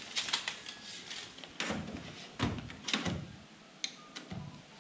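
Steel tape measure being handled and repositioned against a plywood board: a scatter of light knocks and clicks, several in a row, with quieter gaps between.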